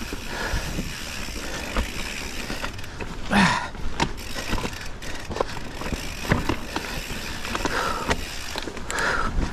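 Specialized Stumpjumper mountain bike ridden over rough, rocky singletrack: tyres rolling over dirt and rock, with the bike rattling and irregular sharp knocks. One louder burst comes a little over three seconds in.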